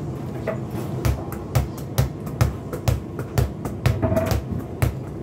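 A child's repeated thuds on a wooden floor, steady at about two a second.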